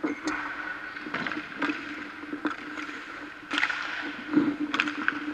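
Ice hockey practice on the rink: skate blades and goalie pads scraping across the ice and sharp clacks of sticks and pucks, repeated irregularly, the loudest knocks about three and a half and four and a half seconds in. A steady hum runs underneath.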